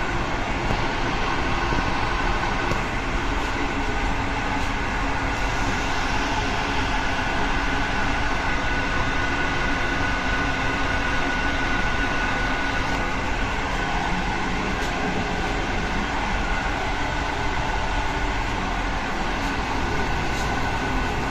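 Steady running noise inside a moving PKP Intercity passenger carriage: an even rumble of wheels on rails with a steady high whine over it and a few faint clicks.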